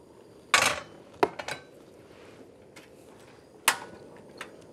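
Metal frying pans and utensils clanking on a tabletop gas burner: a sharp clank about half a second in, a few light clicks, and another ringing clank near the end.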